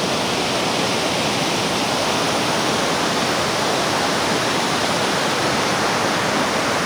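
Water pouring over a dam's concrete overflow weir: a steady, even rushing.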